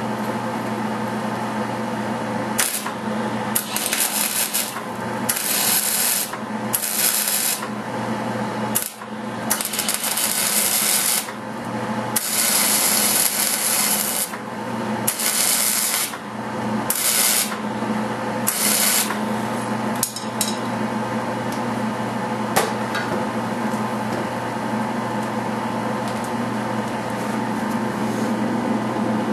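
Welding arc crackling in about a dozen short bursts as steel filler rod is tack-welded into the gap of a car door, over a steady hum. The welding stops about two-thirds of the way through, and only the hum remains.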